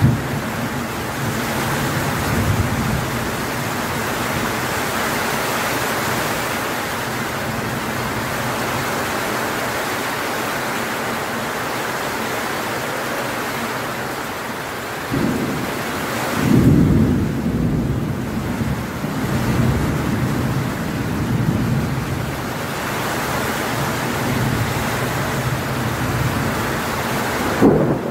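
Heavy tropical downpour, a steady even rush of rain on leaves and corrugated metal roofs. About halfway through, a deep roll of thunder swells up and rumbles on for several seconds, and another low rumble comes near the end.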